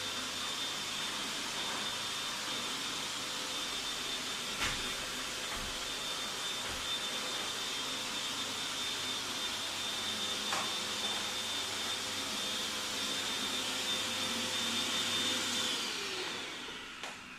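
Vacuum cleaner running steadily with a high whine, with a few light knocks along the way; near the end it is switched off and its motor winds down.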